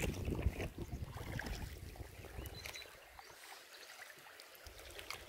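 Quiet ambience aboard an inflatable PVC boat drifting on a river with its motor off. A low rumble with soft knocks, from water or wind, dies down after about two seconds to a faint hush.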